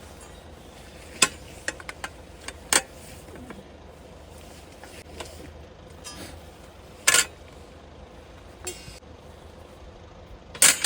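Metal pieces clinking and clanking in a few separate sharp knocks several seconds apart, the loudest a quick double knock near the end.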